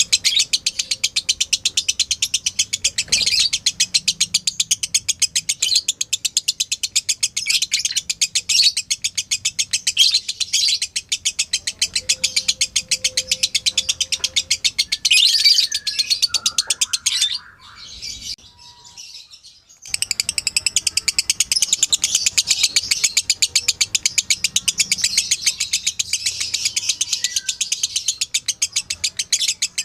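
Lovebird giving its long, rapid-fire chattering song ('ngekek'): a dense run of quick high chirps that stops for about two seconds a little past halfway, then starts again.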